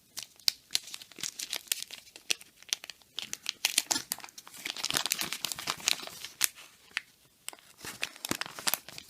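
Old wax-paper trading card packs being torn open and crinkled by hand, a dense run of irregular crackles and snaps, busiest in the middle.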